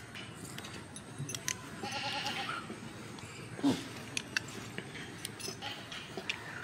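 A goat bleating, one quavering call about two seconds in, with a short louder sound about halfway through and faint scattered clicks.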